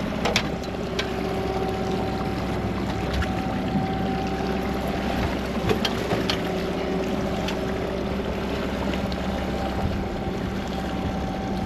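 Boat motor running with a steady hum at trolling speed, with wind and water noise and a few light knocks on the boat.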